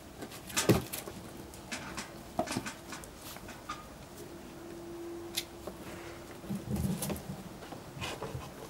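Tibetan terrier puppies playing: scattered scuffles, knocks and thuds, the loudest a sharp thud just under a second in. A faint steady hum runs through the middle.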